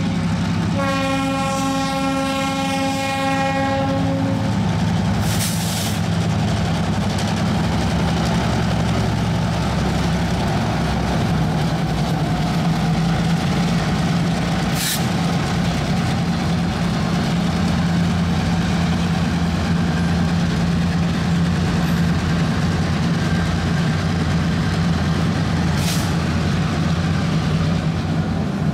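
Diesel horn of a pair of BNSF switcher locomotives, one blast of about three seconds starting just after the start, then the locomotives' diesel engines running steadily as they pull freight cars past. Three sharp clanks stand out over the engine drone, at about five, fifteen and twenty-six seconds in.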